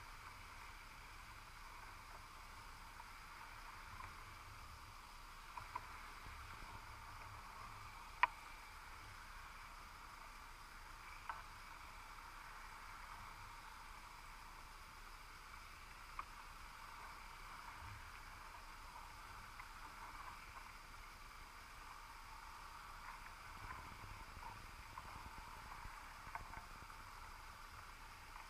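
Faint steady underwater hiss picked up through a camera's waterproof housing on the seabed, with scattered faint clicks and ticks. The sharpest click comes about eight seconds in.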